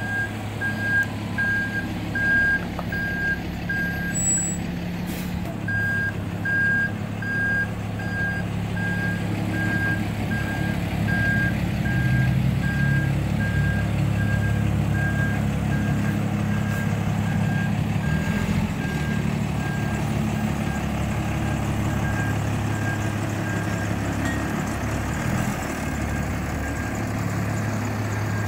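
Fire engine reversing with its backup alarm beeping in a steady, even rhythm, a bit over two beeps a second, over the low, steady running of its diesel engine. The beeping stops briefly about four seconds in, then resumes.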